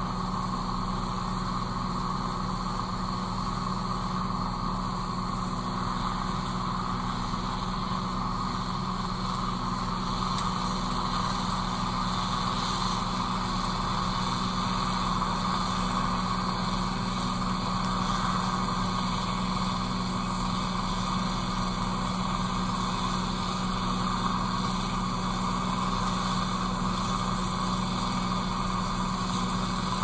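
Gleaner combine harvester running steadily while its unloading auger empties grain into a truck: an even, unchanging machine hum.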